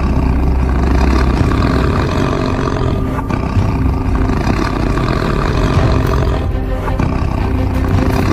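Tiger roaring, a dubbed-in sound effect, over background music.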